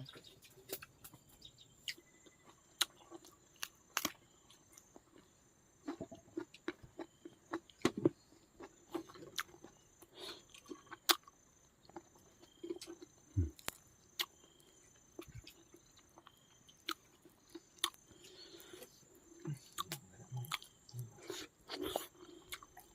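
People eating and chewing, with scattered small crunches and clicks at an irregular pace.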